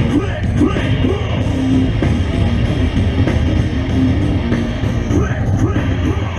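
Loud rock music with singing.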